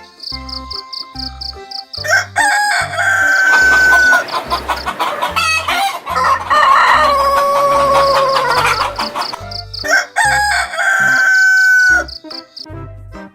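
A rooster crowing about three times, long drawn-out calls, over background music with a steady beat.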